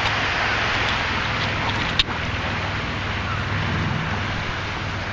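Steady wash of wind and shallow surf water, with a low rumble and a single sharp click about two seconds in.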